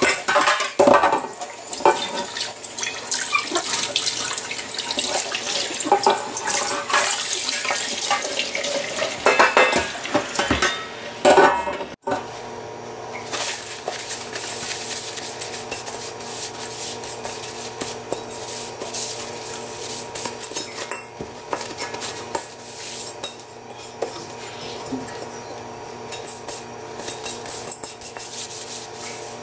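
Yamada carbon steel wok being scrubbed and rinsed in a stainless steel sink with water splashing and the metal wok knocking and clattering against the sink. About twelve seconds in the sound cuts to a steadier, quieter rubbing as the wok is wiped dry with a cloth.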